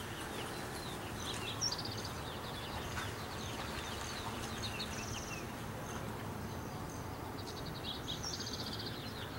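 Songbirds chirping, with a rapid high trill that comes back about three times, over steady low background noise.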